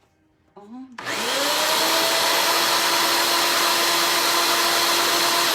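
Electric drill motor driving a ring-cutting machine's arbor, switched on about a second in. It spins up quickly and then runs at a steady high whine.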